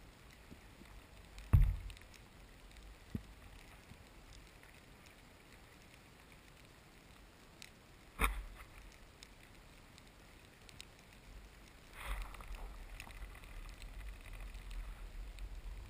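Underwater ambience heard through an action camera's waterproof housing: a low, muffled water hiss with faint scattered clicks. Two sharp knocks stand out, about a second and a half in and again about eight seconds in, and from about twelve seconds in a low rush of moving water swells up.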